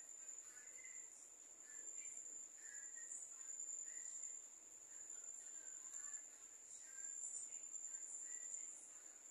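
A faint, unbroken high-pitched insect trill, with a few faint short chirps behind it.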